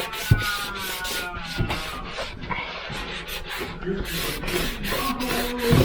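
Repeated rubbing strokes on a refrigerator's dispenser surface as it is wiped clean of hard-water stains, about two or three strokes a second.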